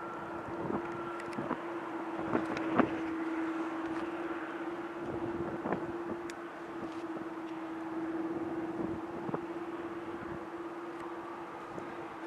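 Jet airliner taxiing with its engines at idle: a steady whine over an even rushing noise, with a few sharp clicks scattered through it.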